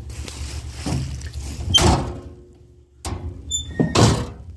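Two heavy thuds about two seconds apart, with smaller knocks between them, over a low steady rumble that drops out for a moment near the middle.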